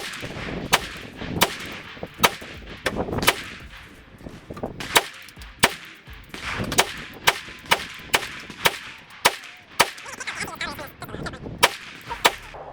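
9mm Glock pistol firing a string of shots in steady succession, about two a second, emptying a Magpul PMAG magazine.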